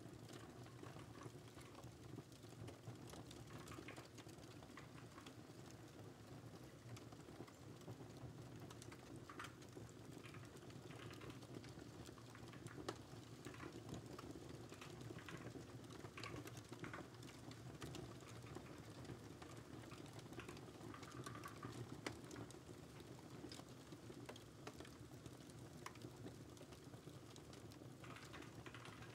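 Quiet typing on a computer keyboard in irregular runs of keystrokes, over a steady crackling wood fire in a fireplace with an occasional sharper pop.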